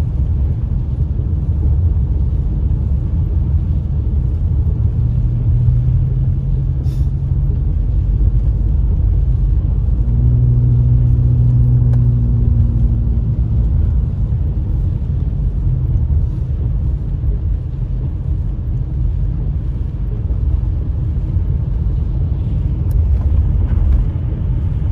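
Car driving on a wet road, heard from inside the cabin: a steady low rumble of engine and tyres. A low engine hum comes in for a few seconds about five seconds in and again about ten seconds in.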